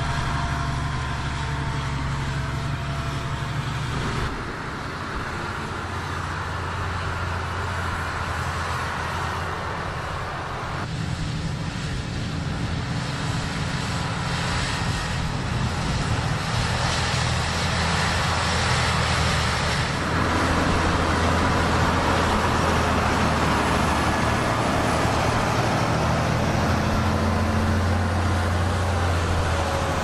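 Big Fendt tractors' diesel engines running steadily under load while pulling a soil-levelling board across ploughed ground, with a hiss of soil and wind over the engine note. The engine sound changes abruptly a few times as one tractor gives way to another.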